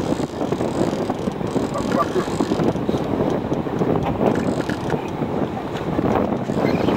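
Wind buffeting the microphone out on open water, a steady rough rushing noise.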